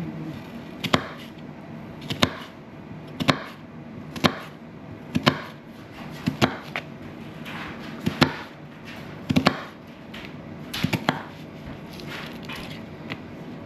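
Kitchen knife chopping an onion on a cutting board: sharp knocks of the blade striking the board, roughly one a second at an uneven pace, sometimes two in quick succession.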